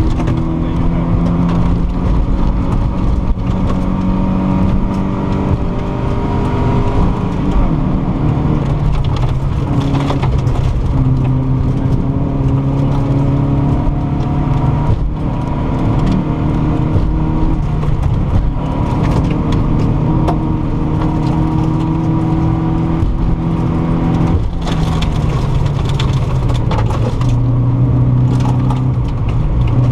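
Volvo 940 rally car's engine heard from inside the cabin, driven hard on a gravel stage, its pitch climbing and then dropping back at each gear change. Occasional sharp knocks from the car's underside.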